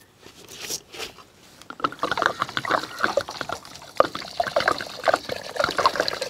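Water poured onto washed basmati rice in an aluminium pot, splashing steadily from about two seconds in, with a few lighter splashes before it. The rice is being covered with water to soak.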